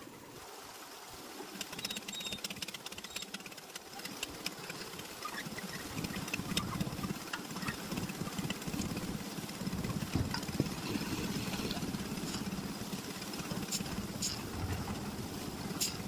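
Concrete mixer's engine running steadily, growing louder over the first few seconds, with scattered clinks and scrapes of aggregate and tools over it.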